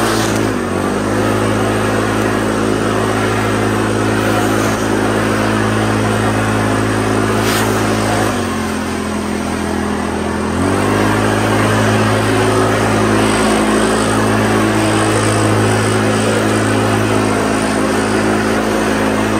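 Small petrol engine of a garden power tool running at a high, steady speed; its pitch dips slightly about half a second in, drops lower for about two seconds around the middle as the throttle is eased, then picks back up.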